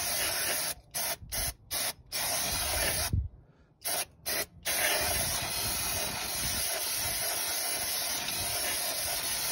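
Aerosol cleaner hissing out through a straw nozzle, washing brake dust off a rear drum-brake hub: several short squirts with brief pauses in the first half, then one long continuous spray from about halfway.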